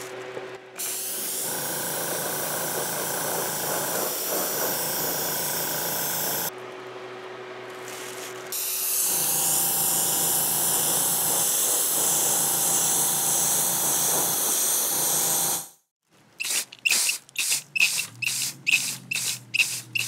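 Air-fed spray gun hissing in two long bursts as coating is sprayed onto a cast-iron lock faceplate, with a compressor humming between them. About four seconds from the end comes a quick run of about ten short spray spurts.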